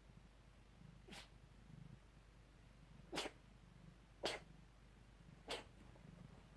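A cat coughing in a bad, long coughing fit: four short, sharp coughs a second or two apart.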